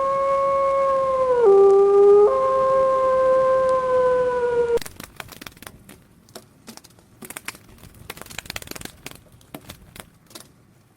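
An animal's long howl, one held note that steps down briefly and back up before cutting off about five seconds in, followed by faint scattered clicks.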